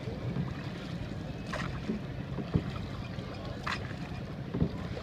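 Boat being rowed on the river: an oar stroke swishes through the water about every two seconds, with a sharp wooden knock between strokes, over a steady low rumble of wind on the microphone.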